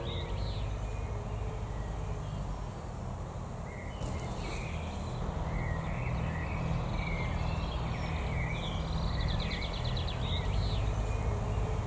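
Small birds chirping and calling, with short whistled notes and rapid trills about a second in and again around nine seconds in, over a low steady rumble.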